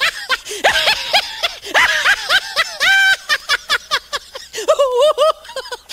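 A person laughing hard in rapid, high-pitched bursts, over and over.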